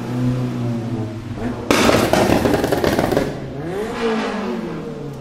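Modified car's engine and exhaust accelerating past. The exhaust gets suddenly louder a little under two seconds in, and the revs rise and then fall again past the middle.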